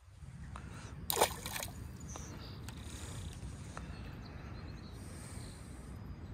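A small bass splashing into pond water as it is released, about a second in, over a steady low rumble of wind on the microphone.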